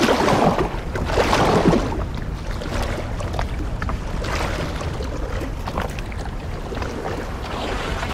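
Paddles splashing in the sea as several people paddle an inflatable boat, in repeated uneven strokes that are loudest in the first two seconds, over a steady low rush of wind and water.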